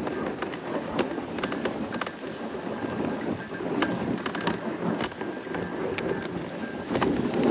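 A sled dog team running on snow: quick footfalls of many paws over the steady noise of sled runners sliding on the snow, with scattered sharp clicks. It grows louder near the end.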